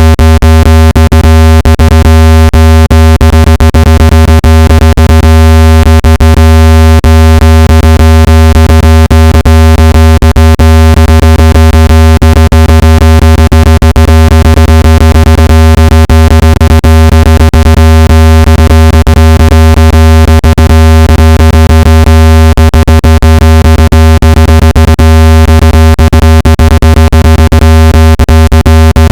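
Speaker water-ejection tone: a loud, steady, low-pitched synthetic hum with a stack of overtones, unchanging throughout and crossed by constant fine crackling clicks. It is made to shake a phone speaker's membrane and drive water out of it.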